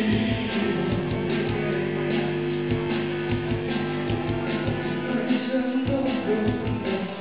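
Live rock band playing: electric guitars holding long chords over a drum kit.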